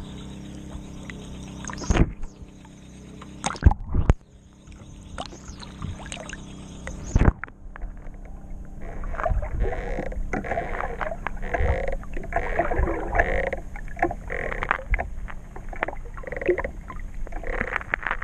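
Waves slapping against a waterproof camera housing at the water's surface, with sharp splashes about 2, 4 and 7 seconds in. The camera then goes under, and the sound turns to muffled underwater sloshing and crackling.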